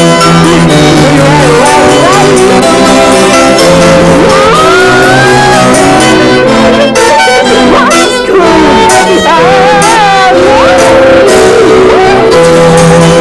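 Loud music with held chords and a wavering, sliding melody line over them.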